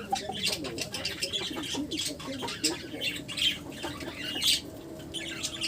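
Many pet birds squawking and chirping together, short overlapping calls coming thick and fast.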